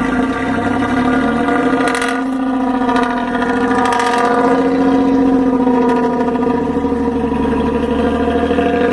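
Exhaust of a Dina bus's diesel engine held at raised revs, giving a loud, steady droning note that wavers slightly in pitch.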